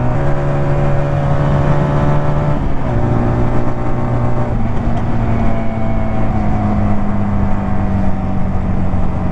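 A 125 cc two-cylinder chopper's engine running under way at a steady cruise, its note dipping slightly about three seconds in and then holding even.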